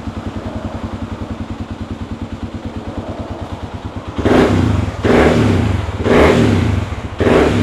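Kawasaki D-Tracker's carbureted single-cylinder four-stroke engine idling with a steady, even pulse, then revved in four quick throttle blips from about four seconds in. The carburetor has a freshly fitted C&M needle kit, and the owner thinks the mixture may have gone a little rich.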